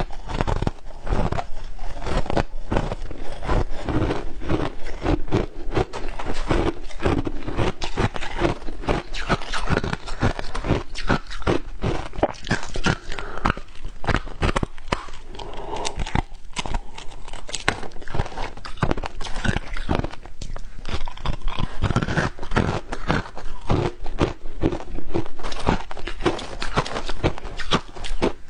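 Crushed ice, some of it coated in matcha powder, crunched and chewed between the teeth close to a clip-on microphone: a dense, unbroken run of crisp crunches.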